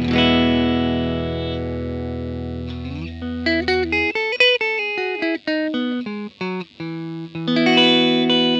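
Electric guitar played through effects pedals into a Fender Blues Junior amp. A chord rings and is held for about three seconds, then a quick run of single notes, then another chord struck near the end.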